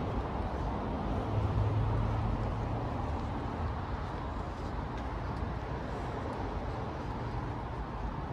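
Steady low rumble of distant city traffic, with a low hum swelling a little over a second in and easing off by about three seconds.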